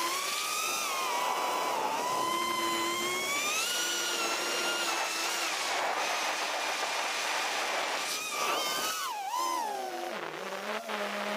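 Brushless motors and propellers of a 6S FPV quadcopter whining in flight. The pitch rises and falls with the throttle: it climbs about four seconds in, dips and wavers near the end, then climbs again.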